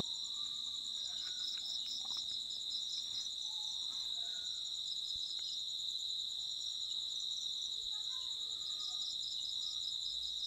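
Steady, high-pitched insect trilling, with a faster pulsing chirp higher up.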